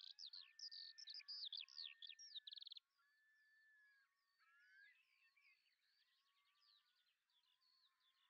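European goldfinch song: a fast, tinkling twitter of short notes and trills, loud for the first three seconds, then cutting off abruptly to fainter twittering. Long, slowly sliding whistled tones run beneath it throughout.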